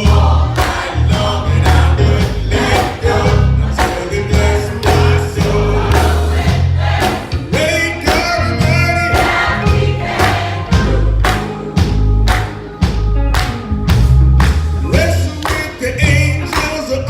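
Gospel choir singing with band accompaniment, heavy bass and drums keeping a steady beat under the voices.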